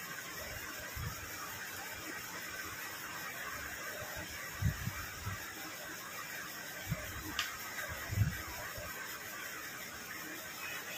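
Steady hiss of falling rain, broken by a few soft low thumps about a second in and again around the middle.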